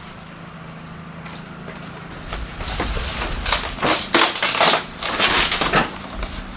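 Cardboard and styrofoam packing crunching and scraping as grill parts are pulled from the box. It starts about two seconds in and goes on in a run of rough crunches until shortly before the end.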